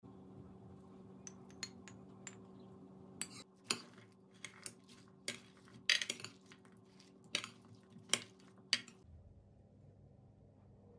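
Metal spoon clinking and scraping against a glass baking dish while stirring a dressed broccoli salad: a run of sharp clicks, louder from about three seconds in, over a steady low hum. Both stop about nine seconds in.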